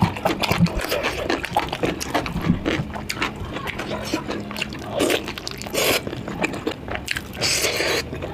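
Close-miked eating of curry: wet chewing, smacking and squelching of saucy food, with irregular clicks and a couple of louder wet hissy bursts near the end.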